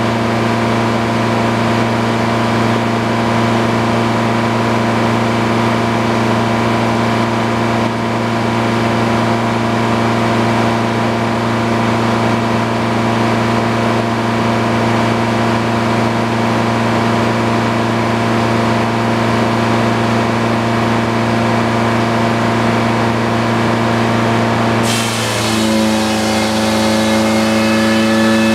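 Belt-driven circular sawmill running, its engine and big blade turning steadily with a constant hum. About 25 seconds in, the blade enters a white pine log and a high cutting whine joins in, while the engine's note drops slightly under the load.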